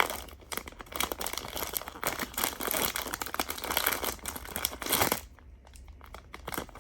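Crinkly wrapping of a Pop Mart blind box being torn open and handled, a busy run of crackling and crinkling that eases off about five seconds in.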